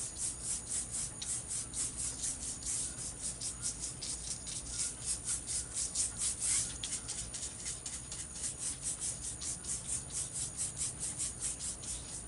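Paintbrush loaded with acrylic paint scrubbing back and forth across acrylic paper. It makes a quick, even run of scratchy strokes, about four or five a second.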